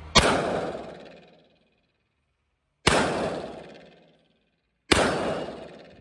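Three single shots from an AK-47 rifle, the second about two and a half seconds after the first and the third two seconds later. Each shot has a long echo that dies away over about a second in the roofed range.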